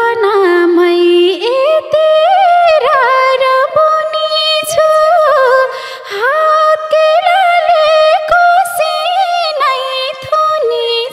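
Instrumental break in a Nepali lok dohori song: a single lead melody line with sliding pitches and quick ornaments.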